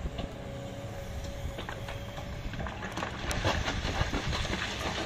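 Kobelco hydraulic excavator's diesel engine running steadily under load, with clanks and rattling knocks of stone that come thicker from about halfway through as the bucket loads a steel dump-truck bed.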